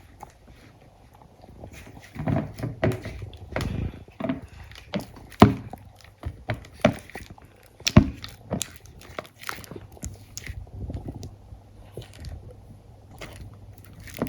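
A utensil stirring a thick glue mixture in a big bowl: irregular knocks and scrapes against the bowl, with sticky, wet sounds from the mixture.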